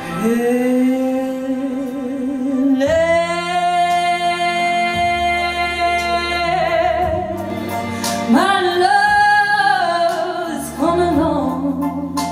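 A woman singing solo into a microphone, holding long notes with vibrato over steady low backing tones. She holds a low note, jumps to a much higher held note about three seconds in, then sings two shorter phrases in the second half.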